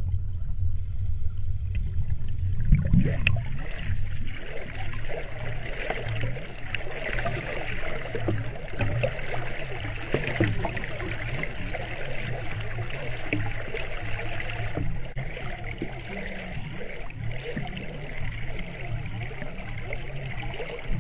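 Flowing stream water heard underwater: a muffled, uneven low rumble with a gurgling hiss that grows louder about three seconds in.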